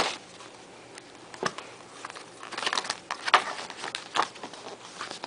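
Cardboard and paper packaging of a MacBook Pro box being handled as the black documentation folder is lifted out: a string of light taps, scrapes and rustles, busiest a little past the middle.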